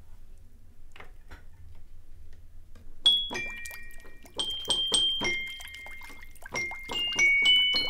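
Toy piano beginning a slow, melancholy waltz: single bright, metallic, bell-like notes, each with a small clack from the key action and a short ring. The notes start about three seconds in, after a few faint knocks.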